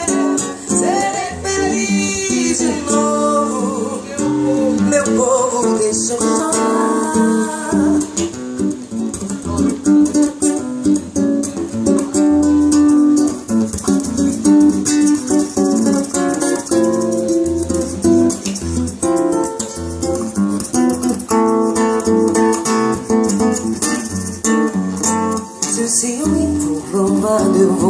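Live acoustic guitar accompaniment with a steady shaker rhythm, and a woman's voice singing a wordless melody into a microphone at times, especially in the first few seconds.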